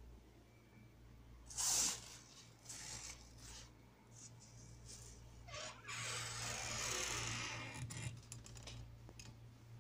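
Rustling and brushing of handled fabric and plastic close to the microphone, in irregular bursts with a louder one about two seconds in and a longer stretch past the middle, plus a few light clicks near the end, over a steady low hum.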